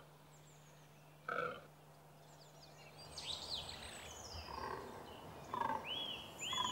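A fallow buck gives one short, deep, belch-like rutting groan about a second in. Then small birds sing and chirp, with quick high notes and repeated arching calls near the end.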